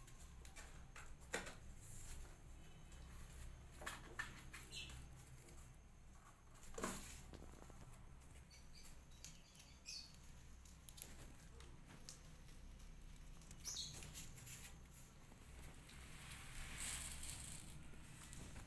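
Faint scratching and pattering of kittens' paws on cardboard as they play and pounce, with scattered soft clicks and a few brief high squeaks.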